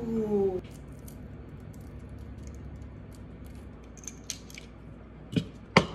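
Metal garlic press being squeezed on garlic: a run of small metallic clicks from the hinged handles, with two louder clacks near the end.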